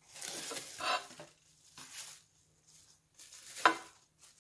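Cling film crinkling and crackling as it is peeled open from around a rolled tortilla wrap, in a few irregular bursts with a sharper crackle about three-quarters of the way through.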